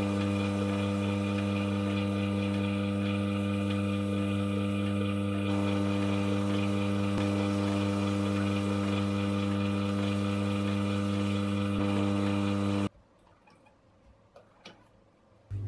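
Small lathe's electric motor running with a steady hum while a wooden handle spins in its chuck and is rubbed with an oiled paper towel. The hum cuts off suddenly about thirteen seconds in, leaving a few faint clicks.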